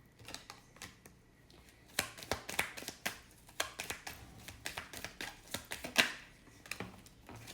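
Tarot cards being handled and shuffled: a run of irregular quick snaps and clicks that starts about two seconds in, with the sharpest one about six seconds in.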